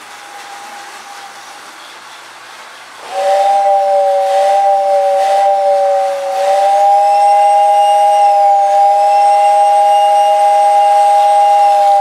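Toy train whistle sounding a steady two-note chord, starting suddenly about three seconds in and holding to the end, with a brief dip partway through. Underneath is the lighter running rumble of the prewar American Flyer Wide Gauge train on its tinplate track.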